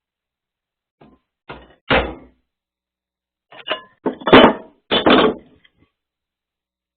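Hammer striking a steel strip clamped in a vise, bending it: a run of about nine sharp blows with a brief metallic ring, the heaviest a little past the middle.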